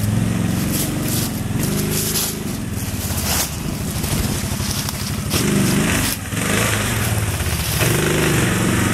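ATV (quad bike) engine revving up and down as the quad climbs and crosses rough ground, its pitch rising and falling several times.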